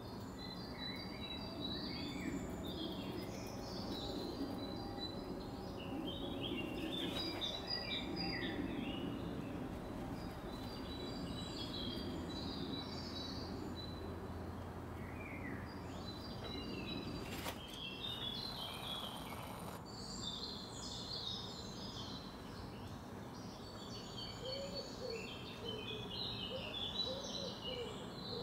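Outdoor background noise with small birds chirping and singing on and off, and a lower call repeated several times near the end.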